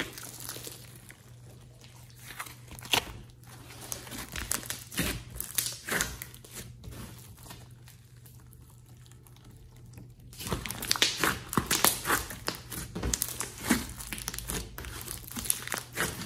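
Thick clay-mixed slime being stretched, folded and pressed by hand, giving off wet crackling clicks and small air-bubble pops. The crackling thins out for a few seconds past the middle, then turns dense and louder about ten seconds in.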